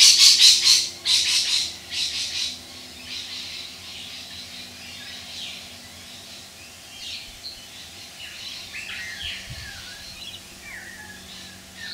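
Birds calling: a loud, harsh, rapid chattering call of about five notes a second over the first two seconds or so, then softer scattered chirps.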